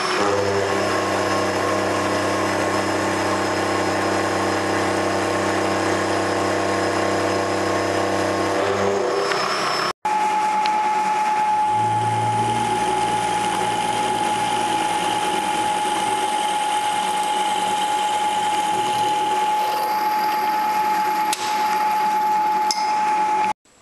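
CNC milling machine spindle running steadily as it machines aluminium, first with an end mill and then, after a break about ten seconds in, drilling a hole. The drilling carries a steady high whine.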